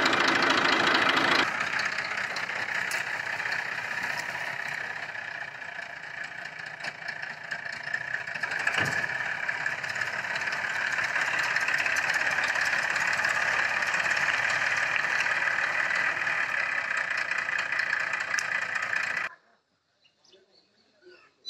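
Massey Ferguson 7250 DI tractor's three-cylinder diesel engine running steadily; the sound cuts off suddenly near the end.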